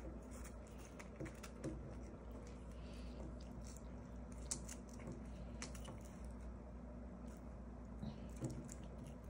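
Singapura cat biting and gnawing at a dried capelin, giving faint, irregular small clicks and crunches.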